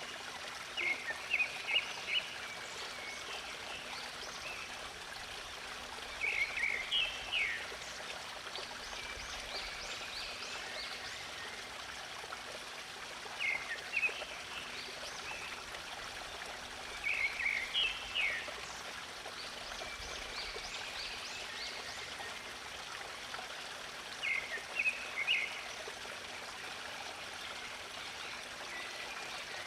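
Steady running water of a stream, with a songbird singing short chirping phrases five times, every few seconds, above it.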